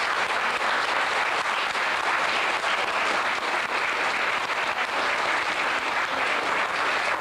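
Audience clapping steadily for a trophy presentation.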